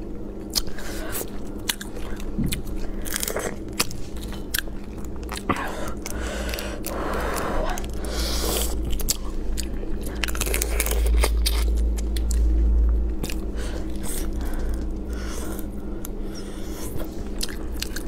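Close-miked eating of spicy crayfish: many small sharp clicks and cracks of shells being broken and peeled, mixed with sucking and chewing of the meat.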